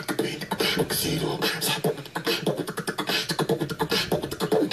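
A voice making a fast run of clicking, popping mouth sounds, like beatboxing, from the soundtrack of a comedy video played through a laptop's speakers.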